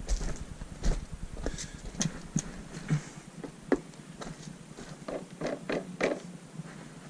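Scattered light knocks and clicks, several per second, over a low rumble that stops about three seconds in.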